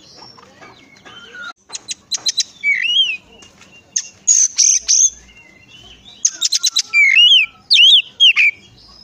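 Oriental magpie-robin (kacer) singing in two phrases, one starting about two seconds in and one about six seconds in. Each opens with a quick run of sharp clicks and goes on to slurred, rising-and-falling whistled notes, and a harsh rasping burst comes between them.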